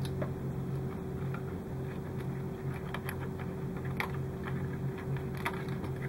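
Light, scattered clicks and taps of fingers handling wires and plastic parts inside a model kit's hull, over a steady low hum.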